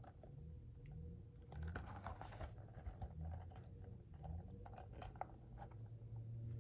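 Hands handling paper and packaging: scattered light clicks, taps and soft rustles.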